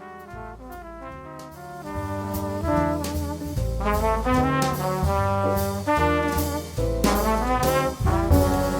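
Background music: a brass-led tune with a beat, quieter in the first two seconds and then fuller.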